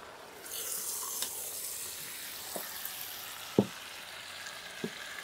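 Chicken pieces frying in oil in a large metal pot, sizzling steadily from about half a second in as a wooden spoon stirs them. The spoon knocks against the pot three times, the loudest knock a little past halfway.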